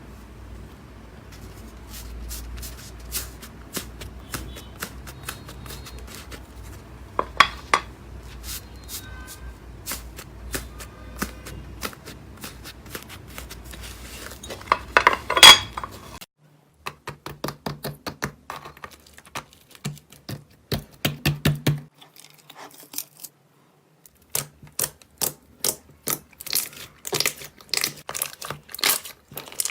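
Hands squishing and poking slime, giving dense sticky clicks and crackling pops. The sound changes abruptly about two-thirds of the way through to drier, more widely spaced clicks.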